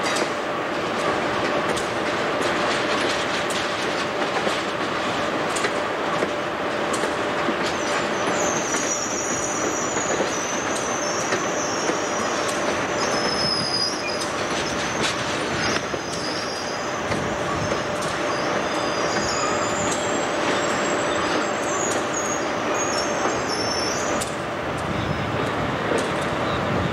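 Amtrak Superliner bilevel passenger cars rolling past along a station platform on arrival, a steady rumble and clatter of wheels on rail. From about eight seconds in until near the end, a high wavering squeal of wheels and brakes comes in as the train slows into the station.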